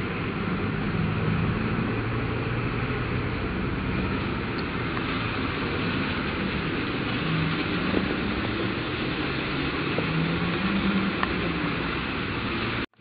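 Steady engine and road noise heard from inside a moving vehicle, with a low hum that rises and falls a little. The sound drops out for an instant near the end.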